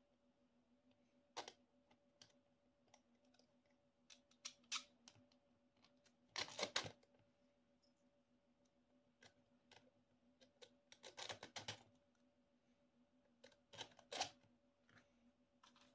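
Faint, scattered clicks and taps of small metal screws and acrylic ant-farm panels being handled and fitted together by hand, coming in small clusters about six, eleven and fourteen seconds in. A faint steady hum runs underneath.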